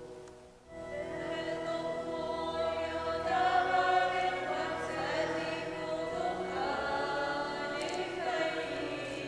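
Sung liturgical chant in long, sustained melodic phrases, with a brief break a little under a second in before the singing resumes.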